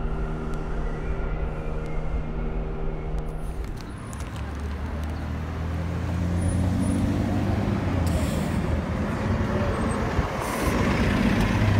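A subway train approaching along the platform with a steady, several-toned motor hum. About three and a half seconds in this gives way to a city bus's engine running as the bus pulls past close by, with two brief hisses of air from its brakes.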